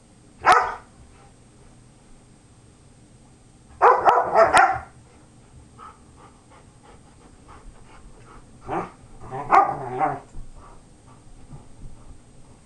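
Old English Sheepdogs barking while play-wrestling: one short bark about half a second in, a quick cluster of barks around four seconds in, and another run around nine to ten seconds in.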